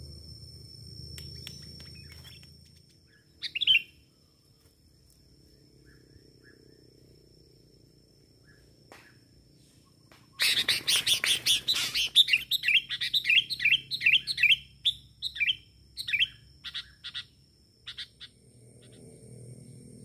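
Sooty-headed bulbul calling: a short call a few seconds in, then from about halfway a loud noisy burst that runs straight into a quick string of chirping notes, which space out and trail off near the end.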